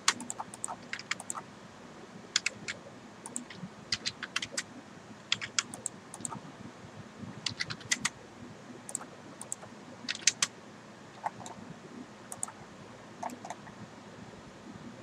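Computer keyboard and mouse clicking at an irregular pace, with short sharp clicks that often come in quick pairs or small clusters and with gaps between.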